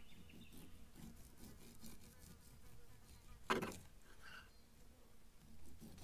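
Carving knife sawing through a roast joint on a wooden cutting board in faint, repeated strokes, with one sharp knock about three and a half seconds in.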